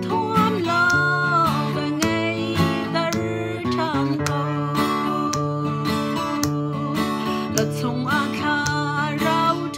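A woman singing a slow song with held notes, over a strummed acoustic guitar.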